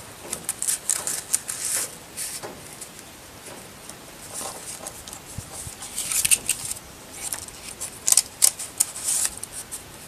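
Paper rustling and crinkling in short bursts as kraft-paper booklet pages and a card insert are handled, with bursts in the first two seconds, again around six seconds in, and more around eight to nine seconds in.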